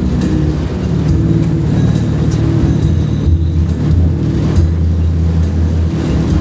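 Motor vehicle driving: a steady low engine and road drone, with scattered light ticks over it.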